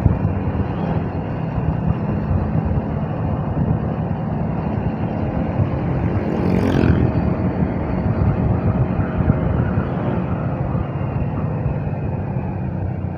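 Motorcycle engine running steadily at cruising speed with wind rushing over the microphone; about halfway through, a brief louder rushing sound rises and fades.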